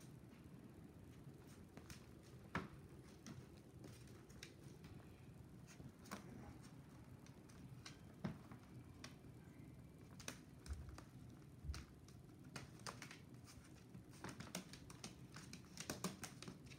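Faint, scattered clicks and taps from puppies moving about and eating in a plastic pool. The clicks grow busier toward the end.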